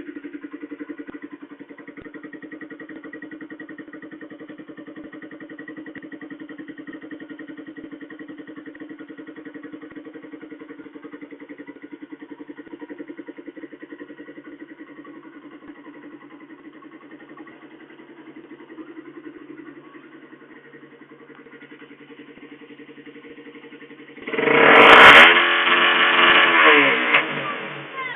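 Suzuki engine idling with a fast, even putter, then revved hard several times about 24 seconds in, suddenly much louder, the pitch rising and falling with each blip.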